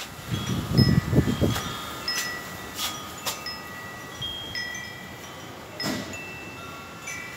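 Wind chime ringing: many overlapping high metallic tones at different pitches, each struck lightly and left to ring. A few low thumps come near the start.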